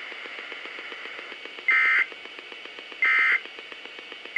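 Emergency Alert System end-of-message data bursts: short bursts of digital data tone a little over a second apart, two in full and a third starting at the very end, signalling the end of the alert.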